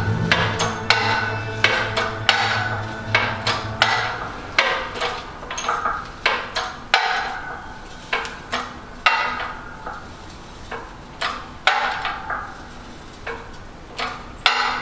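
Background music that stops about four seconds in, then a string of sharp metallic clinks and knocks with a short ring, one or two a second at irregular intervals, from working a 20-ton hydraulic shop press on a sheet of steel in a dimple die.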